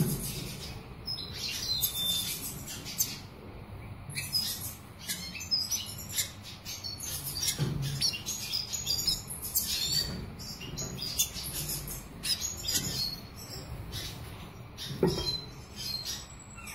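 Black siskin (Bolivian siskin) singing a fast, high twittering song of quick chirps without pause. A few soft low thumps come in between, near the start, about halfway through and near the end.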